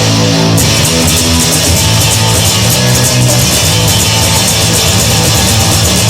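Rock song instrumental with no singing: guitars over a bass line, with the high end filling in about half a second in.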